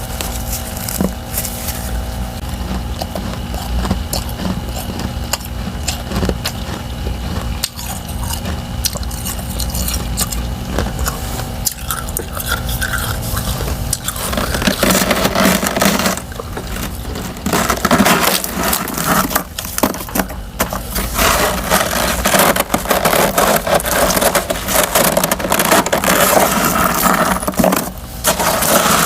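Crunching and scraping of frozen freezer-frost chunks with a powdery frost topping, close up. Scattered clicks and crackles over a steady hum in the first half; from about halfway the crunching turns dense and continuous.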